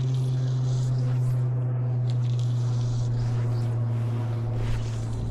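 A loud, steady low hum held at one unchanging pitch, with a patchy hiss above it.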